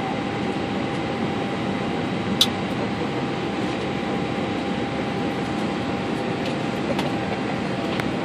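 Steady rushing air and fan noise inside an Airbus A320 cockpit during engine start, with a thin steady whine running through it. A single sharp click sounds about two and a half seconds in.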